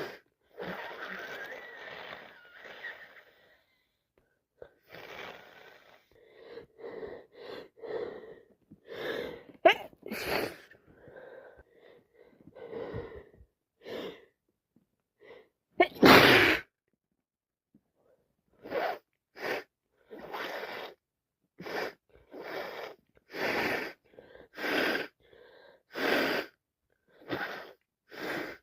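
A woman with a cold and allergies sneezing repeatedly, with wet sneezes, snuffling and sharp intakes of breath between them. The loudest sneeze comes just past halfway. Near the end comes a steady run of short sniffs and breaths, about one a second.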